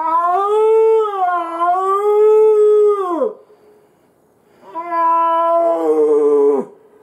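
A hunter blowing a hand-held deer call, imitating a stag: two long drawn-out calls, the first wavering in pitch for about three seconds, the second shorter, each dropping sharply in pitch at the end.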